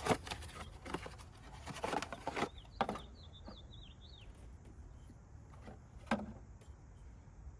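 A few sharp clicks and knocks of a new ignition coil being handled and fitted into the engine. A small bird chirps a quick string of short notes for about a second and a half, a few seconds in.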